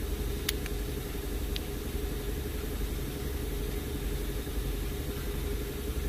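Steady hum of a car engine idling, heard inside the cabin, with two sharp clicks about half a second and a second and a half in as a new trunk release switch is pressed into its plastic bezel and snaps locked.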